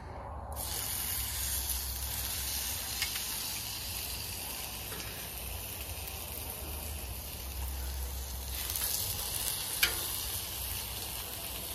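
Raw chicken wings sizzling on the hot, oiled steel top of a Blackstone griddle: the sizzle starts suddenly about half a second in as the first wing goes down, then holds steady. A sharp click near the end.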